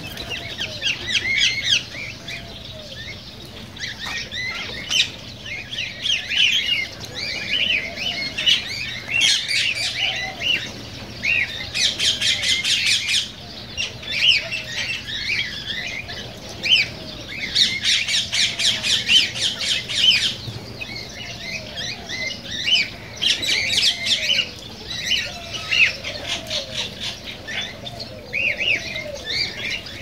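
A flock of cockatiels chirping and calling over one another, with two stretches of fast trilling partway through. A lower rise-and-fall call repeats about once a second underneath.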